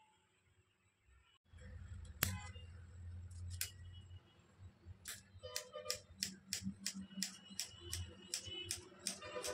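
Kitchen knife slicing a peeled cucumber on a countertop: one sharp knock of the blade on the surface a couple of seconds in, then a quick, regular run of cuts, about three a second, each ending in a click of the blade against the counter.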